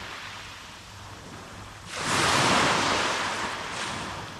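Small sea waves breaking and washing up a sand and pebble beach: one wave surges in about halfway through and hisses away as it drains back.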